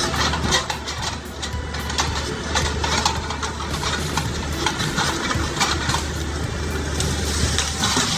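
A heavy machine's engine running steadily, with frequent sharp cracks and crunches over it.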